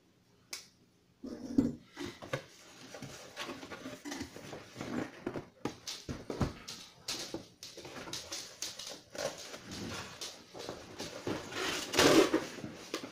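Cardboard box being opened and handled: flaps pulled back, with rustling, scraping and sharp knocks. It grows loudest near the end as the inner slow cooker box is slid out of the shipping carton.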